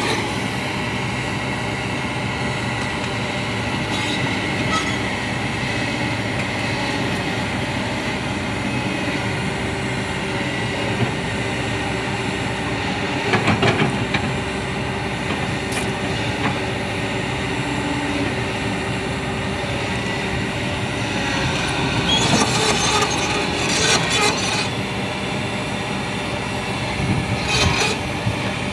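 Excavator at work: its engine and hydraulics run steadily with a rough, whining sound. A few times the running is broken by short bursts of metallic clanking and squealing.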